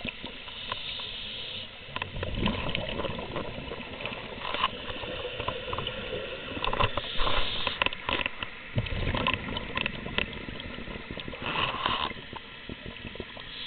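Scuba divers' exhaust bubbles gurgling and rushing, heard underwater, swelling in bursts every few seconds, with scattered small clicks and knocks.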